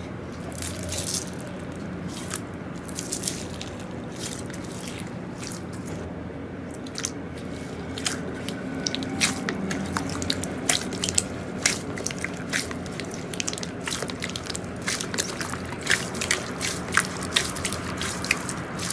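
Slime being handled close to the microphone, making many small sticky clicks and pops over a steady low hum. The clicks come more often from about eight seconds in.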